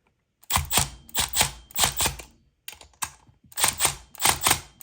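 Cordless impact driver on its low (number 2) setting hammering in short bursts while tightening the clutch bolts on a Zenoah G320 engine. It runs in two spells of rapid hammering with a pause of about a second between them.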